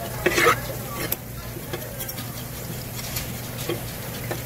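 Knife and hands working a fish on a cutting board while cleaning gizzard shad: scattered short taps and scrapes, the loudest just under half a second in, over a steady low hum.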